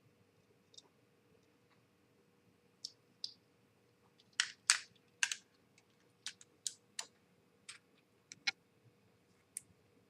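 Irregular sharp clicks and taps of small hard model-kit parts being handled and knocked together on a workbench, loudest in a quick cluster a little over halfway through. A faint steady hum sits underneath.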